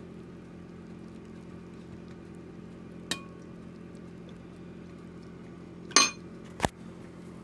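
A household water-supply pump running with a steady low hum. It keeps cycling far more often than it should, which the owner takes as a sign that something is wrong with it. A light clink comes about three seconds in, and two sharp clatters come near the end, the first the loudest, like a utensil on a metal tray.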